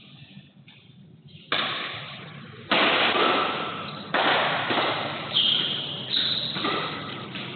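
Badminton rackets hitting a shuttlecock in a fast doubles rally: a string of sharp hits, roughly one every half-second to second, each ringing on in a large echoing hall. A short high squeak comes a little past the middle.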